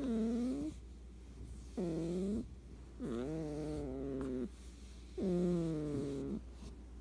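A sleeping cat snoring: four drawn-out, pitched snores, one every one and a half to two seconds, each sliding down in pitch at its start and then holding steady. The later two are longer than the first two.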